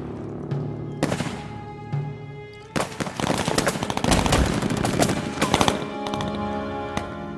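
Bursts of machine-gun fire, in short clusters at first and then dense rapid fire from about three to six seconds in, over background music with held tones.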